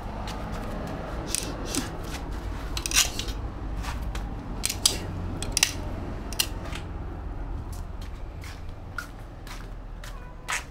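A dozen or so irregular sharp clicks and light metallic taps, with a steady low rumble underneath.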